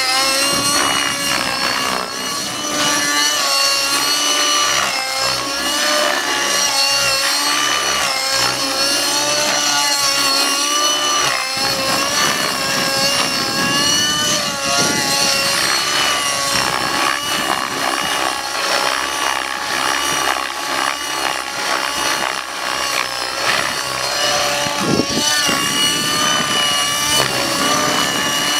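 Nitro RC helicopter's Align 50 Hyper two-stroke glow engine running at high rpm under a governor. Its high-pitched note wavers up and down continuously as the load changes through hard 3D manoeuvres.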